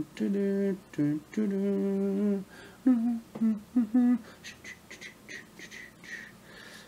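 A man humming a tune in long held notes, then a few short hummed notes; after that only faint rustling from handling the cut-out.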